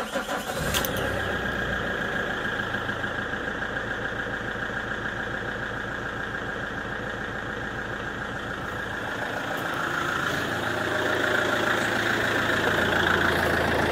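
Van diesel engine idling steadily just after starting. This is its first run after a new fuel filter housing was fitted and the fuel system hand-primed. It gets a little louder from about ten seconds in.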